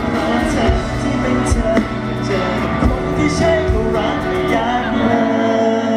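Live Thai pop song played loud through a concert sound system, with a steady drum beat under held chords. About five seconds in the drums drop out and only sustained notes remain.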